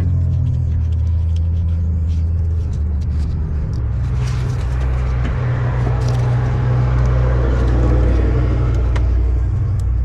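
Steady low engine rumble from a running motor vehicle, its pitch pattern shifting about four seconds in, with a few light clicks over it.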